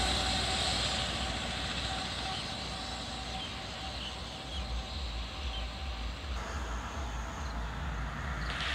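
Roadside traffic on a highway: a small goods truck's engine and tyre noise fading as it drives away, then a small hatchback approaching and growing louder near the end.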